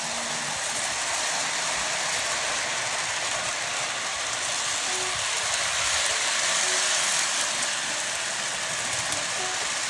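Model train running along its track: a steady rolling noise of wheels on rail and the small motor.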